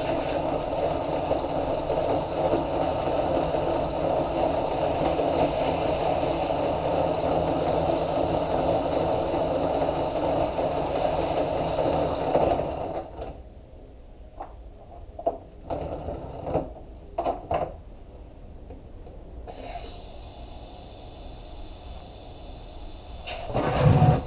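Sandpaper held against a PVC sleeve on the spinning wheel of an electric drift trike, a steady loud rasping sanding sound over the motor. About 13 seconds in the sanding stops, leaving a few sharp knocks and then a quieter steady hum. A loud thump comes just before the end.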